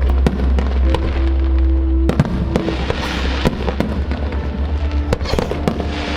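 Aerial fireworks bursting in rapid succession, sharp bangs with patches of crackling, over music playing.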